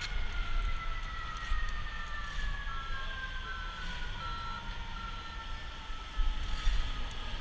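An emergency-vehicle siren sounding, its pitch falling slowly and steadily throughout, over a low street rumble.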